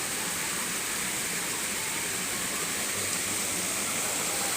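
Waterfall rushing steadily, running at full flow.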